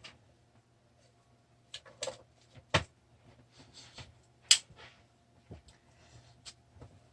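Scattered clicks and knocks of small tools and parts being handled on a workbench, with a brief scraping rustle near the middle. The two sharpest knocks come about three and four and a half seconds in.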